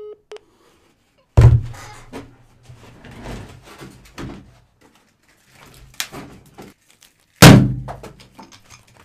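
A short electronic beep of the ended phone call, then two heavy thumps about six seconds apart, each fading over a second, with softer knocks and rustling between.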